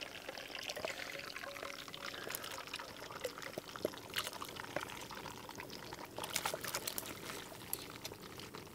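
Potato and sweet potato chips going into a cast iron camp oven of rice oil, the oil sizzling steadily with scattered crackles and pops.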